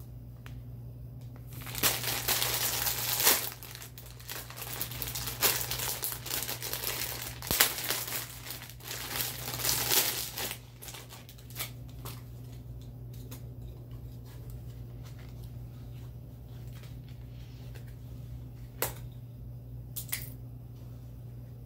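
Clear plastic bag crinkling as it is opened and a plush toy is pulled out of it, with loud crackling for about eight seconds. Then quieter handling, with two short rustles near the end.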